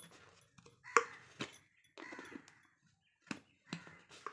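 Clicks and knocks of a green plastic lid being pressed and twisted onto a clear plastic container that will not close properly; several separate sharp clicks, the loudest about a second in.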